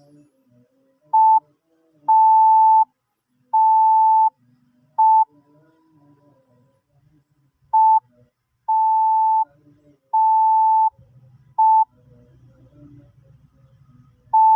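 Morse code practice tone, one steady beep keyed slowly in short and long elements: dot-dash-dash-dot, a pause, then dot-dash-dash-dot again. That spells the letter P twice, and one more short beep comes at the end.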